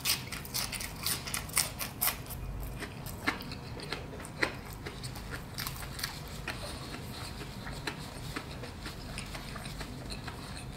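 Close-up crunching and chewing of a breaded fried fish cake, dense crisp crunches in the first couple of seconds, then sparser crackles as the chewing goes on.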